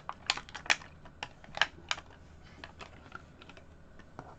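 Irregular sharp plastic clicks and taps, about a dozen in quick uneven clusters, from small Heroclix miniatures being handled.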